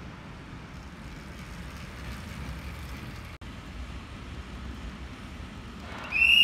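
Steady low rumble of track bicycles rolling on the wooden velodrome boards. Near the end a loud, high, steady whistling tone starts suddenly and holds.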